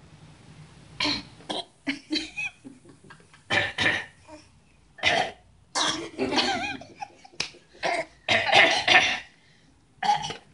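An eight-month-old baby making fake coughs in imitation of adults. About a dozen short, throaty cough bursts come at irregular gaps, some with a squeaky voiced tone.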